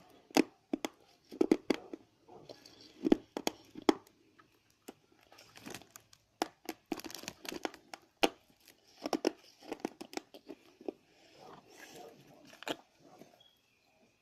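Hands-on handling noise: irregular tearing, crinkling and crunching, with many sharp clicks coming in clusters that thin out near the end.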